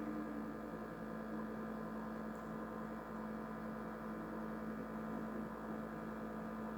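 Faint, steady electrical hum with a light hiss over it, unchanging throughout, while a pot of water heats toward the boil on an electric stove element turned to maximum.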